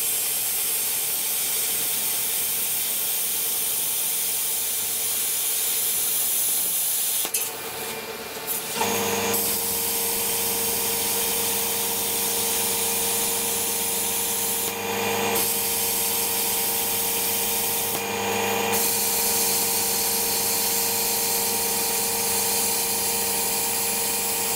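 Hand-held plasma cutter cutting through the steel side plate of a front end loader bucket: a loud, steady hiss of the cutting arc. The cut stops briefly about a third of the way in, then resumes with a steady hum underneath.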